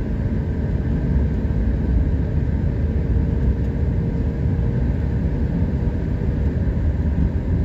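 Steady low rumble of a vehicle being driven, engine and road noise heard from on board, with a faint steady hum that fades out about five seconds in.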